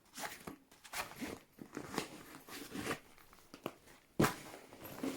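Rustling and irregular clicks of a fabric carry bag and its contents being handled, with one sharper knock about four seconds in.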